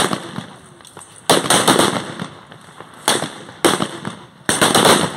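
Blank rifle shots from reenactors' rifles: about five sharp reports at uneven intervals, each trailing off in echo, with a few fainter pops between them.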